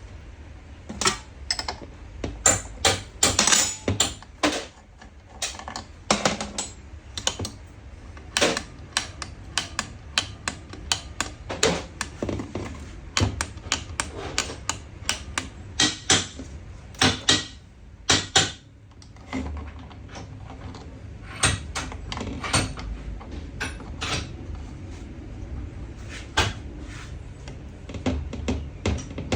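Irregular run of sharp clicks and knocks from hand tools and small metal parts being handled on a workbench, busiest in the first two-thirds and sparser near the end.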